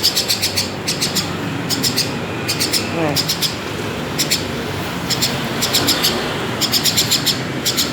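Pet myna and lovebird chirping: short clusters of rapid, high-pitched chirps, repeated every second or so.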